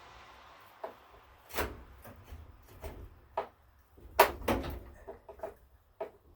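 Irregular knocks and clatters of tools and engine parts being handled on a workbench, about a dozen separate hits, the loudest a sharp clank about four seconds in.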